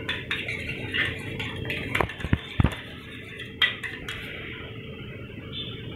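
A spoon scraping and tapping against a small bowl as set curd is scooped out, with a run of light clinks and knocks in the first three seconds and another about halfway through.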